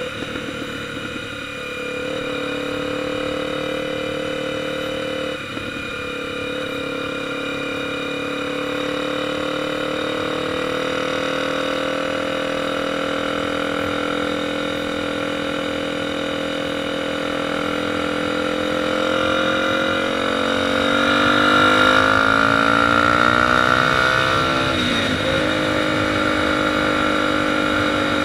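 Motorcycle engine running steadily under way, with two brief breaks in its note early on. About twenty seconds in its pitch and loudness climb, then settle back to a steady run.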